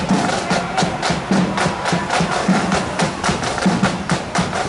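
Marching band drums: snare drums playing rapid beats over bass drum strokes at a steady marching tempo of about two a second.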